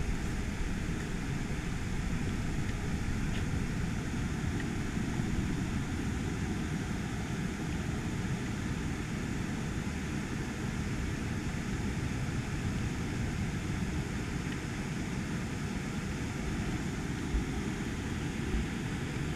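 Steady rushing noise of flowing creek water, holding one level throughout.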